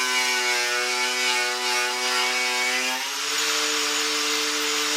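A power tool's motor running with a steady whine, its pitch dropping suddenly about three seconds in.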